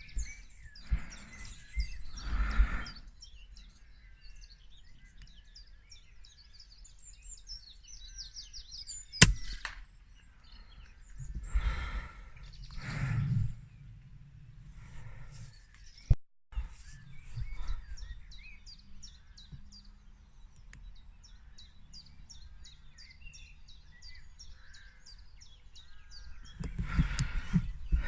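Small birds chirping and singing throughout, with a few breathy rushes of noise that come and go. One sharp crack sounds about nine seconds in, and a brief click near the middle cuts out for a moment.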